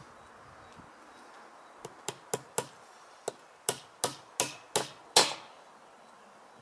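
Hammer driving a nail through a metal fence bracket into a timber fence post: about ten sharp strikes in quick succession starting about two seconds in, the last one the loudest.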